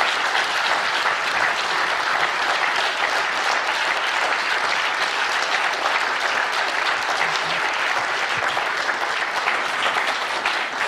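Audience applauding: many people clapping together, dense and steady throughout.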